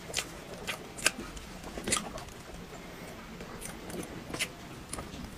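Close-miked eating sounds: a metal spoon scooping soft chocolate cake with cookie crumbs out of a paper box, with a few scattered sharp clicks and mouth smacks.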